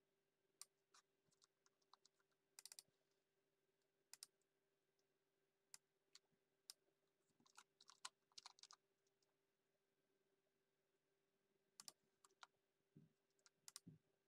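Faint computer keyboard keystrokes and clicks, irregular, some single and some in quick runs, over a faint steady hum.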